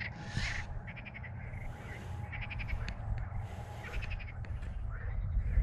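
Frogs calling: repeated short rattling croaks, each a quick train of pulses, coming back every second or so over a low rumble.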